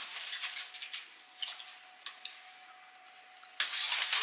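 Aluminium foil crinkling and crackling as it is handled and unwrapped, becoming much louder and denser near the end.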